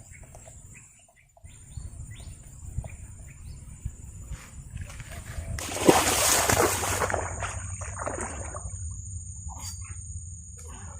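A splash in the water about six seconds in, a noisy burst of about a second that tails off. Under it runs a low rumble with a steady high-pitched tone.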